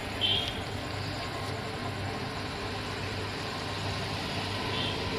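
Steady background hum of distant road traffic, with two brief high chirps, one about a third of a second in and one near the end.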